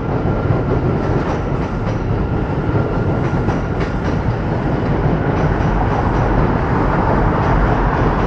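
New York City subway train running across a steel truss bridge, a steady loud rumble with wheels clacking over the rail joints.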